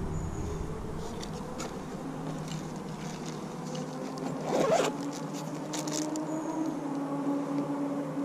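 A zipper pulled open in one short rasp about halfway through, followed a second later by a few light clicks of handling, over a steady low hum.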